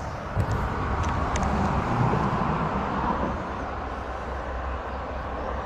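A vehicle crossing the road bridge overhead, its tyres and engine over a steady low rumble, swelling to a peak about two seconds in and then fading. A brief click comes just under half a second in.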